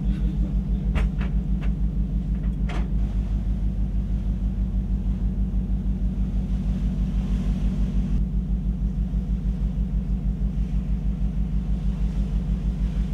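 Steady low throbbing hum of a ship's engines, pulsing evenly about six times a second, with a few faint clicks in the first three seconds.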